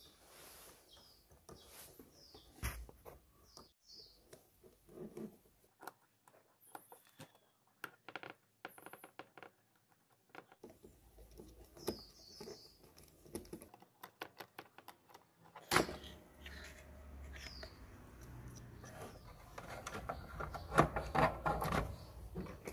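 Light clicks and metallic taps from small cassette-deck parts and a screwdriver being handled, with a sharp knock about sixteen seconds in and a denser clatter near the end over a low hum.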